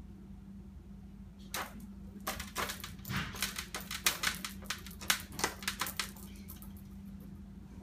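A fridge magnet clicking and tapping against a refrigerator door as it is knocked about: a quick, irregular run of small clicks starting about a second and a half in and dying out about six seconds in.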